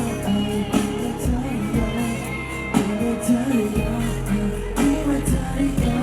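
Live pop music from a concert PA: drums hitting about once a second under a sustained bass and a gliding sung melody.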